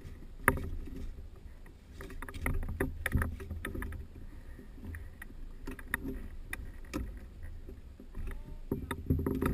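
Irregular clicks, knocks and rustling as hands work at the seat of a parked microlight trike with its engine off, over a low rumble of wind on the microphone.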